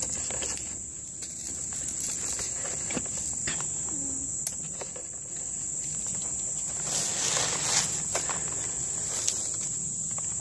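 A steady high-pitched drone of insects, with scattered clicks and rustling of footsteps through dry leaves and brush, busiest about seven seconds in.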